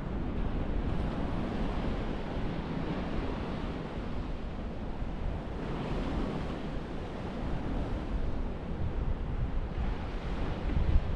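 Sea surf washing onto a sandy beach, a steady rushing noise with one wave surging a little louder about halfway through, under low rumbling wind buffeting on the microphone.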